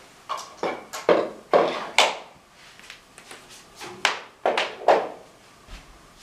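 Irregular knocks and clacks of hard objects handled on a tabletop: about five in the first two seconds and another three close together about four seconds in, each short with a little ringing.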